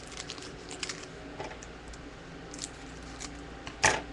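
Foil trading-card pack being handled and opened: scattered crinkles and rustles of the wrapper, with one sharp, much louder crackle near the end.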